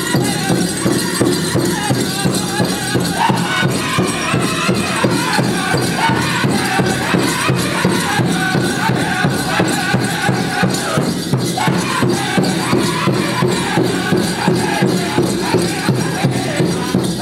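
Powwow drum group playing a chicken dance song: a big drum struck in a steady beat with group singing over it.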